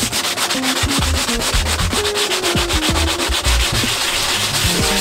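Fiberglass boat deck being hand-sanded with a gloved hand, in quick rhythmic back-and-forth strokes. The old topcoat is being roughened so a new coat will adhere.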